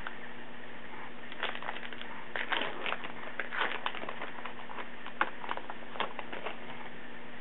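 Crinkling, crackling and light clicks of a foil trading-card pack being opened and the baseball cards handled, irregular and busiest in the middle, over a steady background hiss and low hum.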